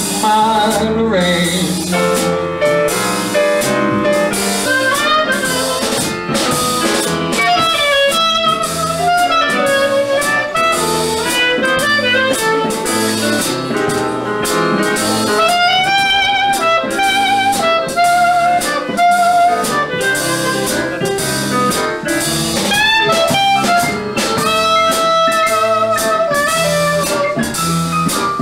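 Small live jazz band: a clarinet plays the lead melody with vibrato over keyboard, double bass and drum kit keeping a steady beat.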